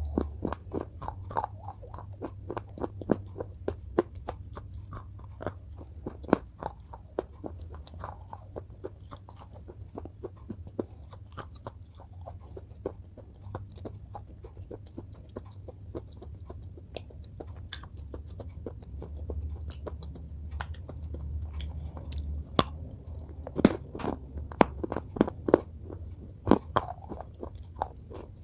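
Close-up biting and chewing of something hard and brittle, with many sharp, irregular crunches that come thickest near the start and again near the end. A steady low hum lies underneath.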